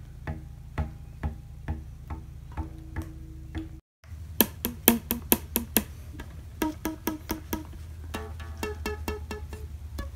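Bass guitar strings plucked and struck in unusual ways: short plucked notes about two a second, then after a brief cut about four seconds in, sharp snapping string attacks followed by quicker, higher ringing notes, over a steady low hum.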